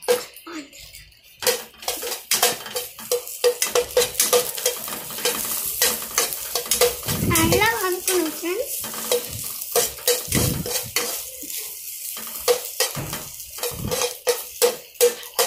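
Chopped okra frying in oil, stirred with a steel spoon in a pan: repeated scraping and clinks of metal on the pan over a light sizzle.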